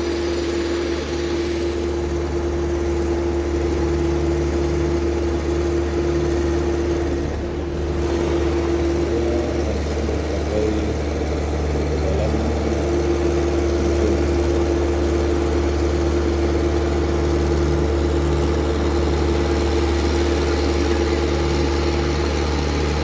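Engine of heavy road-works machinery running steadily, with a deep low hum under a steady mid-pitched drone. It dips briefly about seven seconds in.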